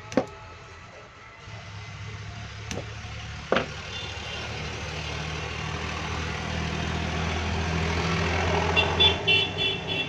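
A motor vehicle running in the background, growing louder and then dropping away near the end, followed by a rapid run of short high beeps. Three sharp clicks come in the first four seconds as pliers and wire leads on the siren amplifier are handled.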